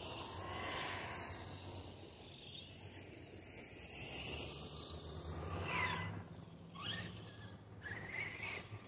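Arrma Typhon Mega electric RC buggy running on a 3S LiPo across asphalt: motor whine and tyre hiss swelling and fading as it drives around, with several short rising whines in the second half as it accelerates.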